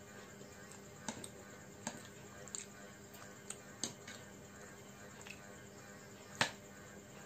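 A metal fork clicking against a plate while twirling noodles: a few sharp short clicks, the loudest near the end, over a faint steady hum.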